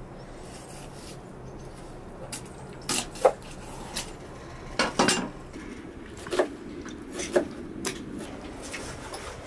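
A large knife chopping raw chicken on a wooden board: about ten irregular sharp knocks, the loudest a little over three seconds in.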